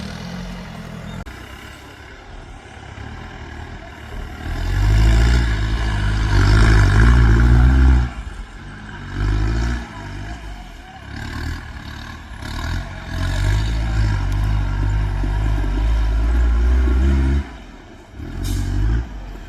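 Mahindra off-road 4x4's engine revving hard in four bursts, the longest lasting several seconds, dropping back between them.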